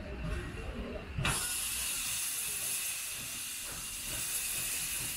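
Steam hissing hard from the open cylinder drain cocks of the 1906 StEG-built 0-8-0 steam locomotive 414.096 as it moves off slowly. The hiss starts suddenly about a second in and holds steady, easing off near the end.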